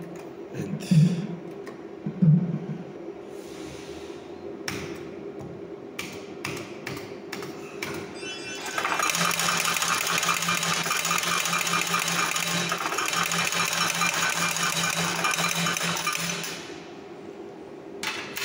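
Bar video slot machine's electronic game sounds: three low thumps in the first few seconds and a few clicks, then from about nine seconds in a loud, rapidly pulsing electronic rattle for about eight seconds as the reels spin, over a steady low hum.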